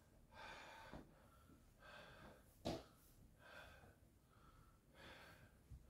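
Faint quick breathing, a breath about every second and a half, with a single light knock a little before halfway.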